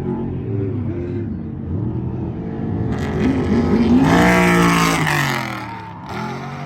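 Off-road race vehicle's engine revving hard as it approaches and passes close. The pitch climbs and the sound is loudest a little past the middle, then it falls away and fades, with engine sound continuing underneath.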